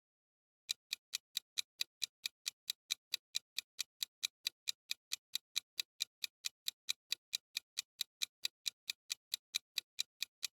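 Clock-ticking sound effect of a quiz countdown timer: sharp, even ticks at about four a second, starting just under a second in.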